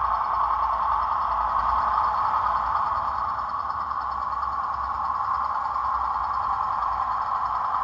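Digital sound decoder in an OO gauge model Class 07 diesel shunter playing its diesel engine sound through the model's small speaker as the loco runs slowly. It runs steadily, easing off slightly around the middle.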